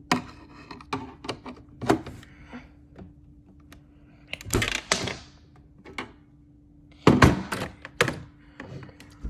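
Plastic clicks and thunks from a toy washing machine's stiff door button and door being pushed and forced: a string of separate knocks, the loudest about seven seconds in, over a faint steady hum.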